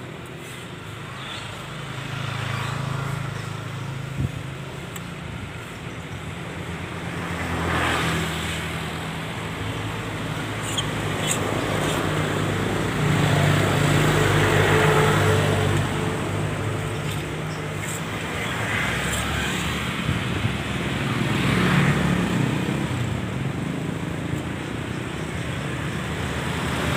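Road traffic: motor vehicles passing on a street, with engine hum and tyre noise that swells and fades several times.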